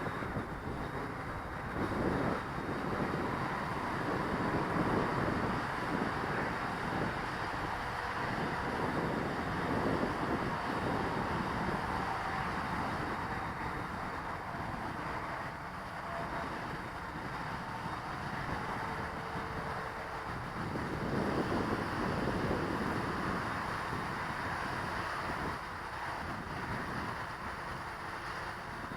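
Gusty wind buffeting the microphone, rising and falling, with the faint whine of a quadcopter's electric motors changing pitch underneath.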